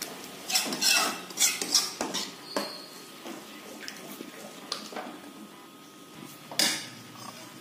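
Steel spoon scraping and clinking against the sides of a steel kadhai while stirring wheat flour, besan and semolina into melted ghee for atta halwa. A run of scrapes and knocks comes in the first few seconds, with one more sharp scrape near the end.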